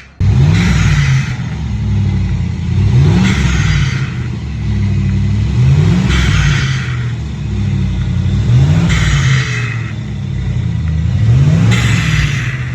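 Electronic turbo sound simulator playing its looped effect: an engine-like tone rising and falling in pitch, with a hissing blow-off burst, repeated about every three seconds.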